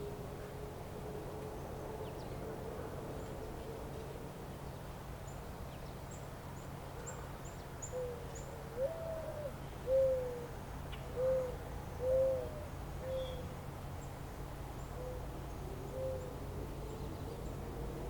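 A bird's short hooting calls, about one a second, beginning about halfway through and stopping shortly before the end. Faint high chirps come a little before the hoots, over a steady low background rumble.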